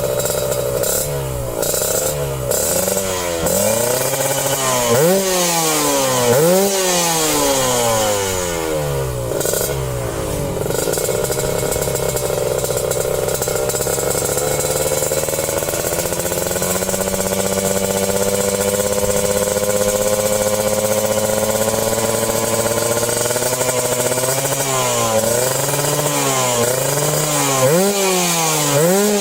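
Yamaha RX-King two-stroke motorcycle engine being ridden fast. For the first ten seconds or so its pitch shoots up and drops back again and again, about once a second. It then holds a long, steady run with the pitch slowly climbing, and the quick up-and-down revving returns near the end.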